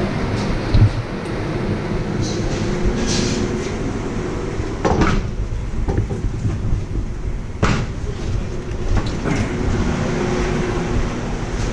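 A steady low mechanical rumble with a constant hum, broken by a few sharp metallic clanks, the loudest about five seconds in and again near eight seconds.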